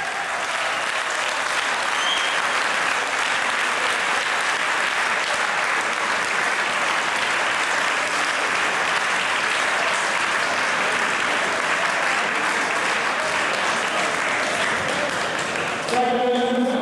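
Audience applauding steadily, a dense clatter of many hands that keeps an even level and gives way to a man's voice near the end.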